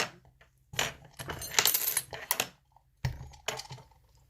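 Metallic clinking and rattling of lock picks against a picked mortise lock cylinder being turned and handled, in two clusters of clicks. The picked plug's turn is blocked only by the cylinder's tailpiece.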